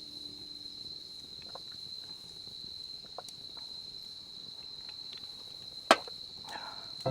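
Insects trilling steadily on one high note, with a few faint ticks and one sharp click about six seconds in.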